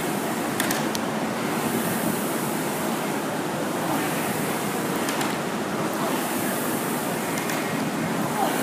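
Air-resistance rowing machine's fan wheel whooshing steadily, swelling with each stroke about every one and a half to two seconds.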